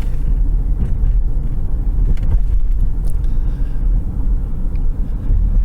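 Car driving along a street, a steady low road-and-engine rumble heard from inside the car.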